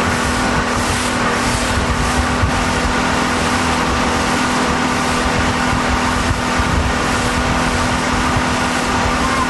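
Boat's outboard motor running steadily at towing speed, a constant drone, with wind rumbling on the microphone.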